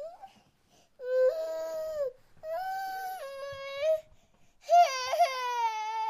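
Baby crying: three drawn-out wails, each a second or more long, with short breaths between them; the last wail is the loudest. A brief rising squeak comes right at the start.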